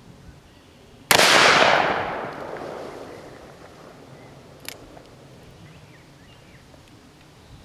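A single shot from a Smith & Wesson .44 Magnum revolver about a second in, a very loud sharp crack whose echo fades away over about two seconds. A brief sharp click follows a few seconds later.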